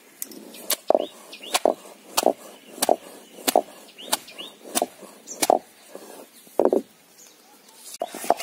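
A heavy stone pestle pounding garlic, ginger, cinnamon and green chillies in a stone grinding mortar: about a dozen dull knocks of stone on stone, roughly one every 0.6 s, pausing for a moment near the end. Faint bird chirps sound in between.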